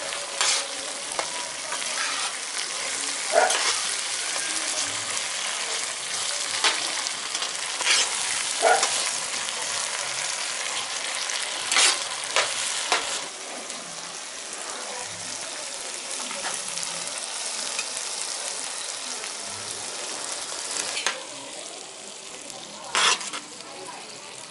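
Thick onion-tomato masala gravy sizzling in a kadai as a perforated metal ladle stirs it, with sharp scrapes and knocks of the ladle against the pan every few seconds. The sizzle gets quieter over the last few seconds.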